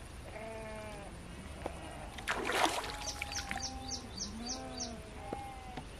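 Livestock bleating several times in short arched calls, with a brief splash about two seconds in and a quick high chirp repeated a few times a second.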